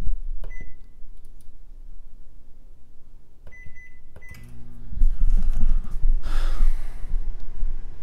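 GE Profile Advantium oven-microwave control panel beeping as its buttons are pressed: one short beep about half a second in, then a few more about three and a half seconds in. The oven then starts cooking and runs with a steady low hum, with a louder rush of noise about six seconds in.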